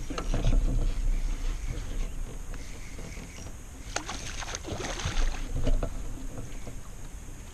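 A hooked bass splashing and thrashing at the water's surface beside a small jon boat as it is reeled in, loudest about four to five and a half seconds in. A low rumble sits under the first second or two.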